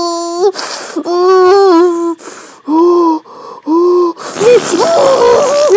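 A person's voice making drawn-out moaning noises without words: a long held note, then gasping breaths and two short rising-and-falling moans about three seconds in.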